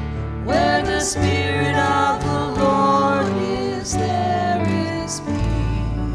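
A slow worship song: a singing voice comes in with a rising slide about half a second in, over guitar accompaniment.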